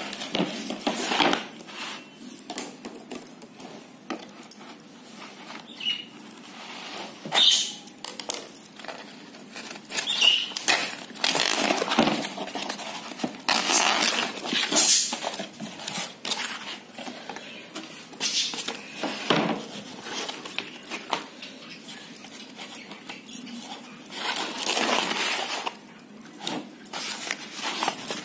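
Old varnished painted canvas being cut with a blade and ripped by hand: repeated ripping and tearing sounds, each lasting from a moment to a couple of seconds, with short pauses between.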